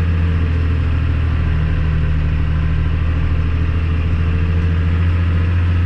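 Tractor engine running steadily while pulling a planter, a deep, even drone with no change in pitch.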